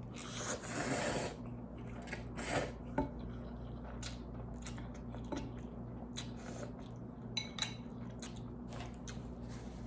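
Eating utensils clinking and scraping against a bowl of ramen noodles: a run of short light clicks, the loudest a longer scraping rush about half a second in. A steady low hum runs underneath.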